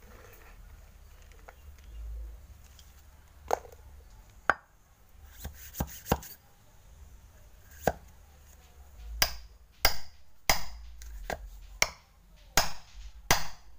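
Sharp knocks of a metal ramming rod packing soil hard into a paper rocket-firecracker tube standing on a stone slab. A few scattered knocks come first, then from about two-thirds of the way in a steadier run of louder ones, roughly one every two-thirds of a second.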